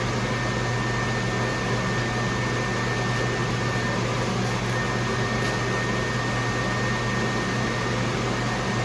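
Steady hum of a running fan unit, with a thin, high, steady whine over it.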